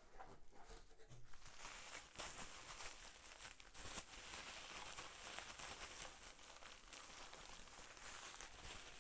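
Plastic packaging, a bag and bubble wrap, crinkling and rustling as it is unwrapped by hand, with many small crackles throughout.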